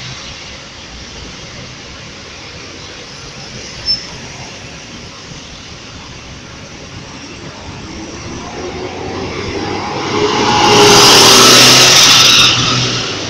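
City buses running along a busway amid steady traffic noise. Near the end one bus comes close and passes, its engine and a loud hiss swelling to a peak for about two seconds, then dropping off sharply.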